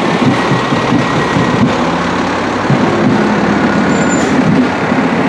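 Fire truck's engine running as it rolls slowly past close by, a loud, steady low rumble.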